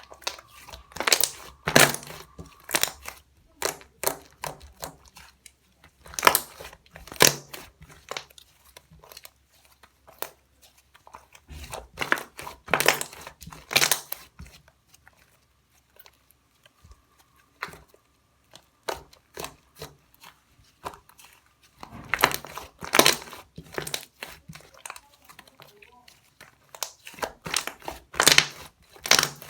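Cream slime being pressed and squished by hand, giving bursts of quick crackling pops every few seconds with quieter stretches between.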